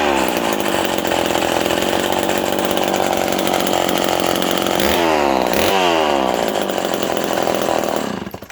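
Vintage Lombard two-stroke chainsaw running loud, its pitch dropping briefly a few times, then the engine shuts off near the end.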